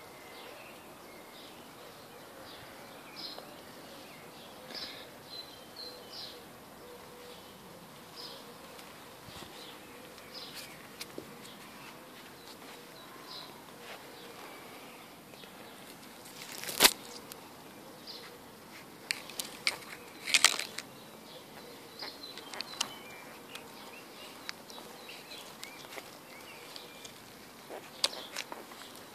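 Hedge branches and twigs rustling and snapping as they are pushed aside, with one sharp loud crack in the middle and a cluster of cracks and rustles a few seconds later. Before that, faint short high chirps over a low steady hum.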